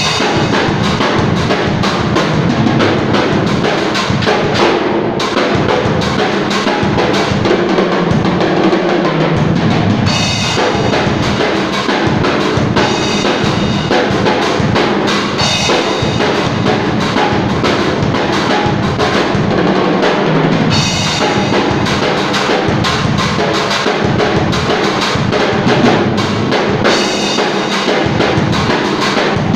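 Drum kit played continuously at a soundcheck: a busy groove with rapid bass drum strokes and snare hits, with cymbal crashes every few seconds.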